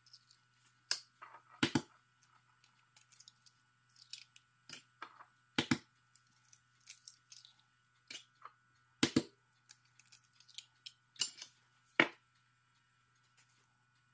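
Eggs cracked one by one against a ceramic bowl: four sharp cracks about three to four seconds apart, with softer clicks of shell and fingers between them.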